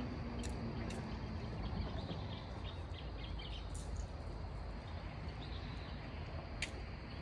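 Outdoor night ambience: a steady low rumble with many short, faint chirps scattered through it and a few sharp clicks. A faint steady hum fades out in the first couple of seconds.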